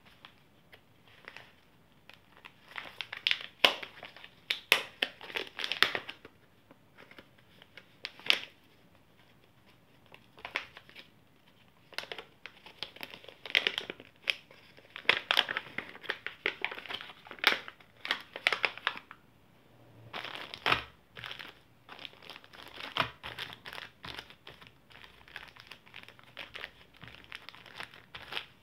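Plastic and paper packing pouches crinkling and rustling in irregular bursts as they are handled and opened.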